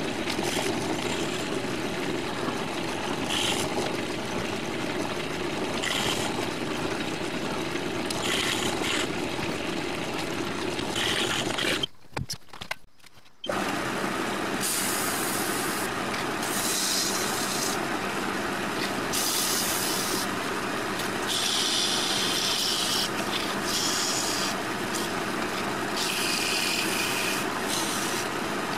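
A metal lathe running steadily, with repeated short scraping sounds of tool or abrasive against the spinning workpiece. The sound drops out briefly about twelve seconds in, and the scraping comes more often after that.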